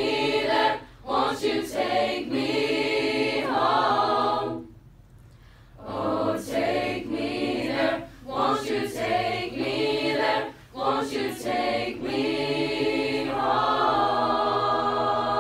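Mixed-voice choir singing a cappella in close harmony, phrase by phrase, with a brief hush about five seconds in, then holding a long sustained chord near the end.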